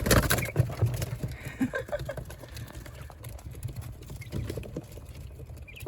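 Small caged animals scrambling about in a panic inside their hutch: a loud burst of knocking at the start, then scattered scratching and tapping with a few faint chirps.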